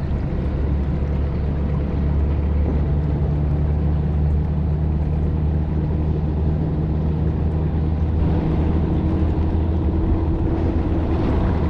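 Boat's outboard motor running steadily at trolling speed.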